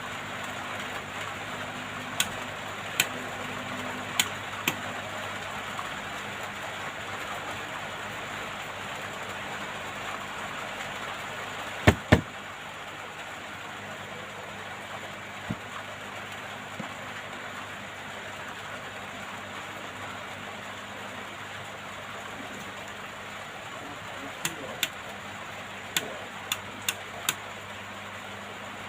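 Hot air rework gun blowing steadily, a constant airy hiss over a low hum that eases slightly about halfway through. Scattered sharp clicks and taps, the loudest a double knock about twelve seconds in and a quick run of clicks near the end.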